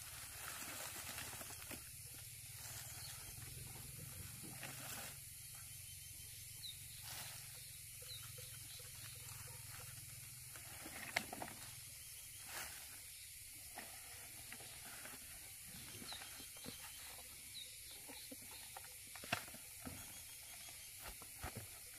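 Faint steady high hiss with scattered light clicks and taps, one sharper click about halfway through and another near the end.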